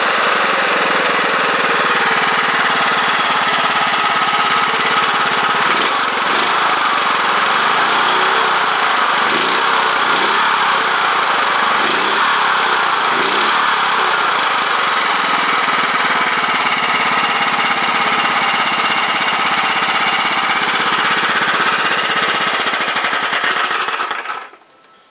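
Harbor Freight Predator 420cc (13 hp) single-cylinder four-stroke engine running, its speed rising and falling several times in the middle as the throttle lever is worked by hand. It winds down and stops near the end.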